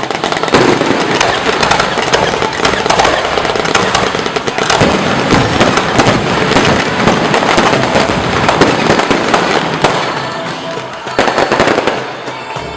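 A dense fireworks barrage: many overlapping bangs and crackles in quick succession, easing off a little near the end.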